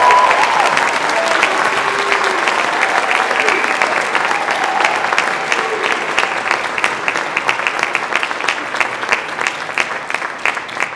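Audience applauding, with a few voices calling out in the first seconds. The clapping slowly thins and fades toward the end.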